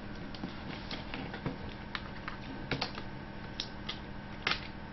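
Irregular light clicks and taps of hands and a small tool working at the hinge of an opened laptop's display, with a couple of sharper clicks in the second half.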